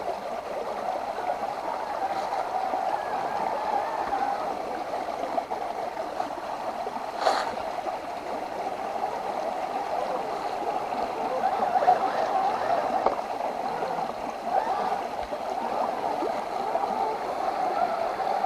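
Water gurgling and churning steadily, with one sharp click about seven seconds in.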